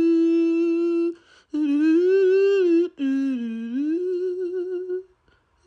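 Arctic wolf howling: long held notes broken by two short pauses, the pitch rising and falling, with a wavering note before it stops about five seconds in. A short note follows near the end.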